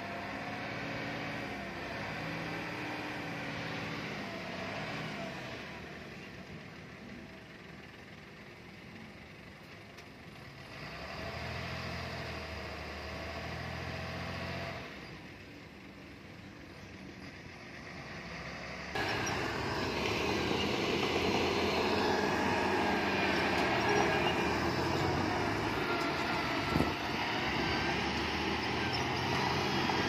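Diesel engines of heavy earthmoving machines working, their level rising and falling. The sound jumps abruptly louder about two-thirds of the way through.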